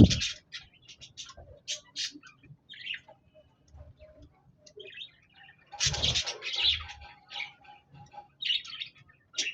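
Pet budgerigars chirping and warbling in a stream of short, high chirps. The chatter gets busier right at the start and again about six seconds in.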